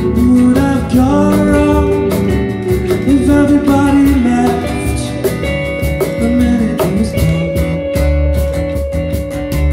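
Live band playing a song: a man singing over strummed acoustic guitar, electric bass and electric guitar, with a steady beat. About halfway through, the singing gives way to one long held note over the band.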